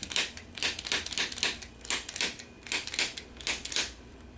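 A quick, slightly irregular series of sharp clicks or taps, about four a second, with a short pause near the end.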